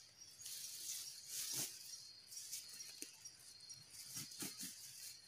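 Insects chirring steadily in the forest, with irregular rustling and crackling handling noise and a few soft knocks over it.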